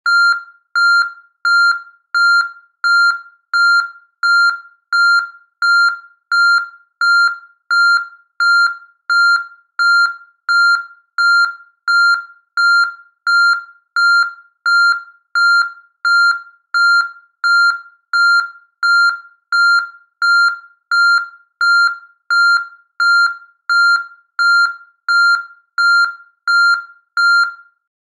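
Vehicle reversing alarm beeping: one high tone of fixed pitch repeating evenly, a little under one and a half beeps a second, until it stops near the end.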